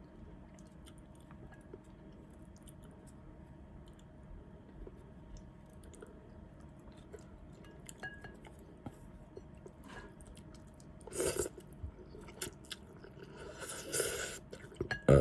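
Close-miked chewing of noodle soup, with soft wet mouth clicks. Two louder noisy bursts come near the end, a short one and then a longer one.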